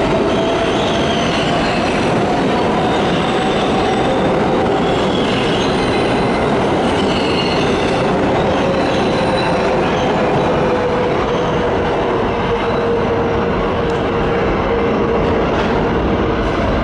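A New York City subway 7 train pulling out of an underground station, its cars rolling past with a loud steady rumble of wheels on rail. A sustained whine drifts slowly in pitch under the rumble, with a few brief higher squeals in the first half.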